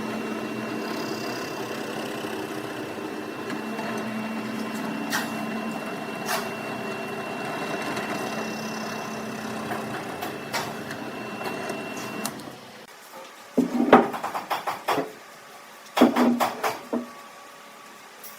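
A woodworking power tool running steadily, with a few clicks, stops about two-thirds of the way in. Two short bursts of rapid rattling knocks follow.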